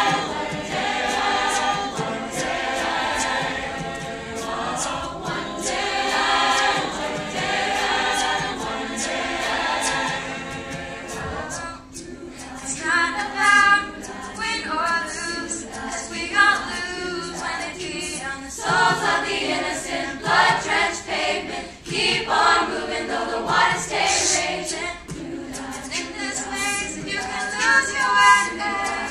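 School choir singing a cappella in sustained chords. About twelve seconds in the texture changes to two girls singing at a microphone in front of the choir, in shorter, broken phrases.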